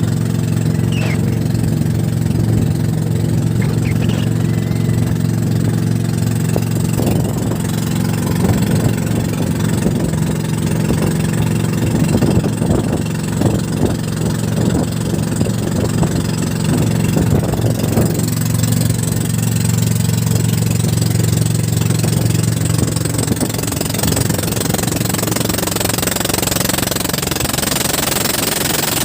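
Small fishing boat's engine running steadily, with irregular knocks for a stretch partway through.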